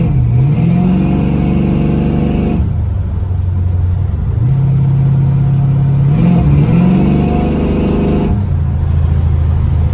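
383 stroker small-block Chevy V8 with Vortec heads and a mild cam, heard from inside the cab while accelerating. The revs climb twice for about two seconds each, and each climb ends in a sudden drop in revs, with steady cruising between.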